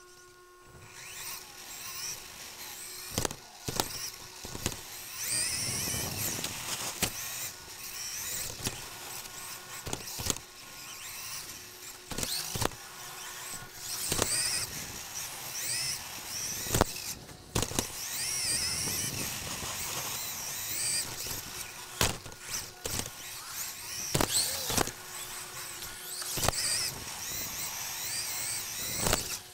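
Onboard sound of an Xray XB2 2WD electric RC buggy with a 13.5-turn stock brushless motor driving hard: the motor and gears whine, rising and falling in pitch as it speeds up and slows, with frequent sharp knocks from bumps and landings.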